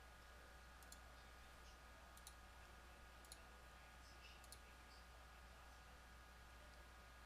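Faint computer mouse clicks, about half a dozen single clicks spread over the few seconds, over a low steady hum.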